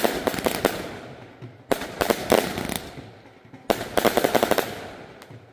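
Aerial fireworks bursting in three volleys about two seconds apart, each a sudden bang followed by a dense rapid crackle that dies away over about a second.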